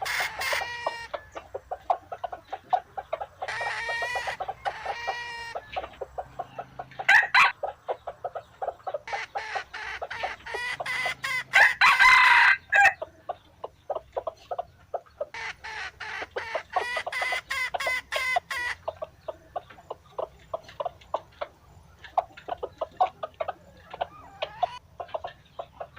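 Dong Tao chickens: roosters crow several times, each crow a second or more long, over steady rapid clucking.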